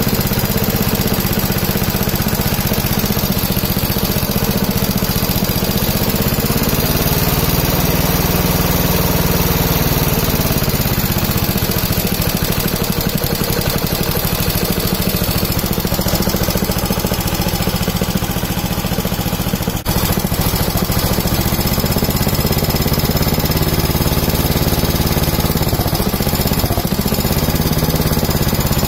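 Honda GX160 single-cylinder four-stroke engine running on hydrogen gas. It speeds up about seven seconds in and falls back a few seconds later, with a brief dip near twenty seconds and an unsteady stretch near the end. The throttle will not raise its speed: opening it makes the engine start cutting out, which the owner puts down probably to too much oxygen.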